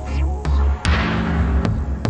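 Electronic film score with a heavy bass pulse and held tones, with a wide burst of noise about a second in.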